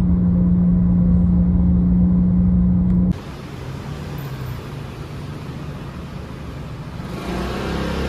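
Car interior noise from the back seat: a steady rumble of road and engine noise with a constant low hum. About three seconds in it cuts abruptly to a quieter, even hiss of outdoor traffic.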